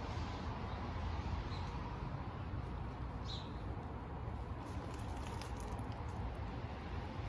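Gray squirrel gnawing on a pine cone, with a run of faint quick clicks past the middle, over a steady low background rumble. A single faint bird chirp about three seconds in.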